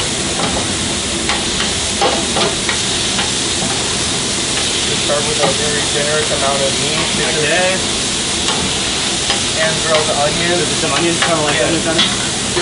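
Chopped steak sizzling steadily on a hot flat-top griddle, with a few clicks and scrapes of a metal utensil moving the meat.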